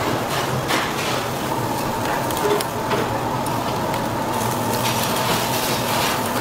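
Beef sizzling on a charcoal grill grate, a steady hiss over a low hum, with a few light clicks as metal tongs turn the meat.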